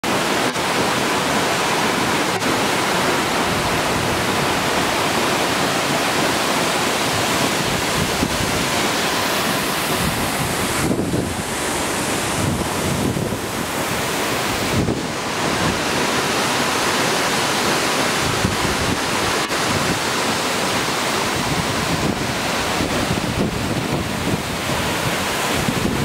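Virginia Falls' main drop and the cascade below it: a loud, steady roar of falling and rushing water, mixed with wind noise on the microphone.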